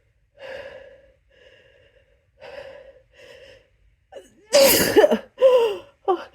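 A few short, catching inhalations as a sneeze builds, then a rapid string of loud, harsh human sneezes starting about four and a half seconds in. The sneezes are induced by a paintbrush held against a trigger spot inside the nostril.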